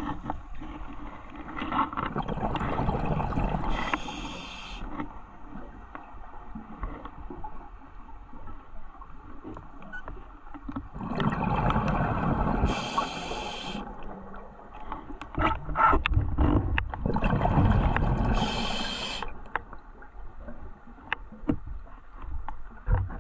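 Scuba diver breathing through a regulator underwater: three slow breaths, each a rush of exhaled bubbles with a brief hiss, separated by quieter gaps.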